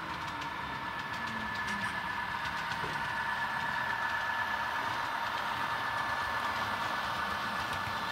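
Model Santa Fe diesel locomotives (a C44, SD45-2 and SDP40F) running past at close range, giving a steady engine-like drone with a whine on top that grows a little louder as they approach.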